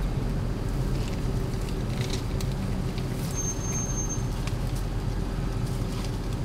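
Steady low rumble of a car engine idling, with a brief thin high whistle about halfway through.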